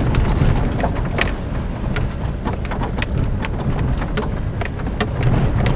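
Pickup truck rolling along a gravel road, heard from inside the cab: a steady rumble of tyres on gravel with many small stones crackling and ticking against the body.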